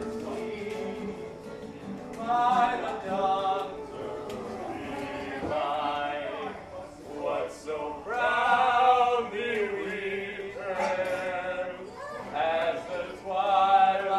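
Music with singing: a male voice with a choir, holding long wavering notes.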